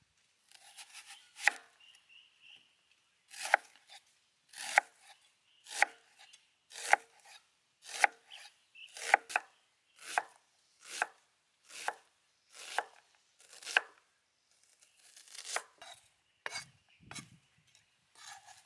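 Kitchen knife cutting through a yellow onion and striking a wooden chopping board: single, evenly spaced cuts about one a second, then a quicker, less even run of cuts near the end.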